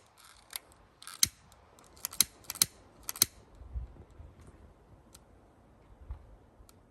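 A string of sharp mechanical clicks and snaps, bunched in the first three and a half seconds, then only a few faint ticks.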